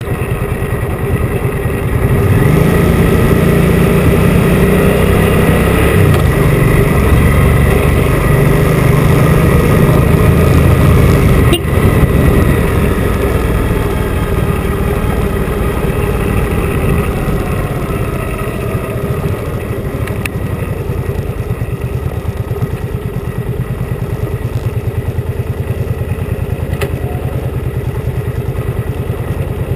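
Motorcycle engine running while being ridden, louder from about two seconds in with a brief dip near the middle, then quieter, its note falling for a few seconds before settling.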